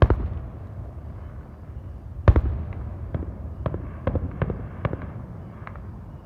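Fireworks going off: a loud bang at the start and a bigger boom a little over two seconds in, followed by a string of sharp pops over a low rumble.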